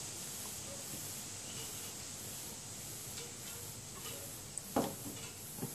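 Steady background hiss with a few light knocks from the potty chair's plastic tray being handled, the loudest about five seconds in and another just before the end.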